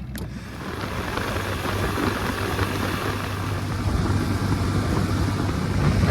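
Boat engine running and getting louder as the boat picks up speed, with a steady low hum under the rush of wind and water.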